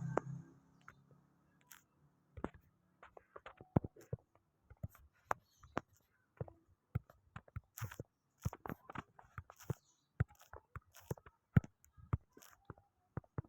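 A long run of irregular short clicks and taps, some single and some in quick clusters, with quiet gaps between them.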